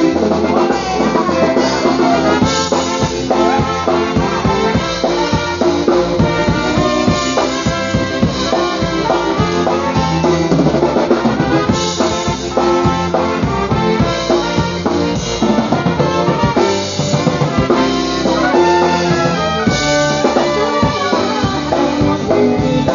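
Live polka band playing an instrumental passage, with brass (trumpet and trombone) over a steady drum-kit beat.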